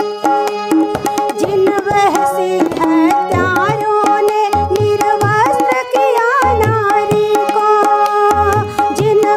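Tabla playing a steady rhythm, crisp treble-drum strokes with recurring deep bass-drum booms, over the held reedy notes of a hand-pumped harmonium. A woman sings a Hindi folk melody over them through the middle of the stretch.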